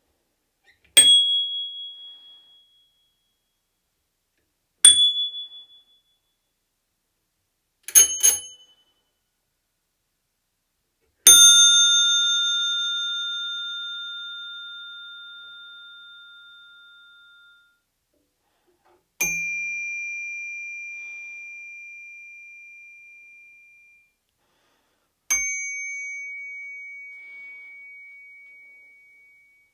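Bicycle bells of different makes struck one at a time, each a single ding left to ring out. The first three are short, high dings, the third struck twice in quick succession. About eleven seconds in comes a long, rich ring with several tones together, followed by two more long single-tone rings that each fade over several seconds.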